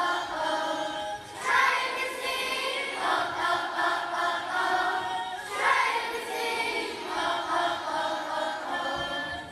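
A group of primary-school children singing together as a choir, in long held phrases, with new phrases starting about every four seconds.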